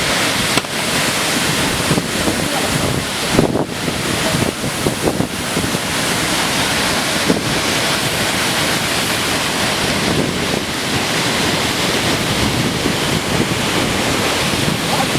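Waterfall: a steady roar of falling, crashing water.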